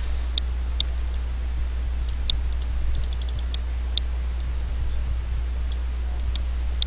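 Scattered sharp clicks from a computer mouse and keyboard, a few quick ones in a row about three seconds in, over a steady low electrical hum.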